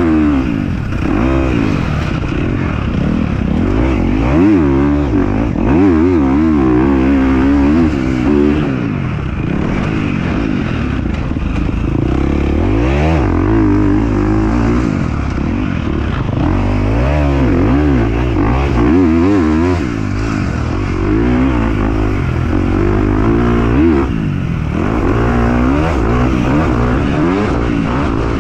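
Dirt bike engine revving up and down as it is ridden, its pitch rising and falling again and again.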